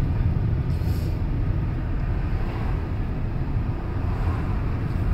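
Steady low rumble of a moving car heard from inside the cabin: engine and road noise at low speed.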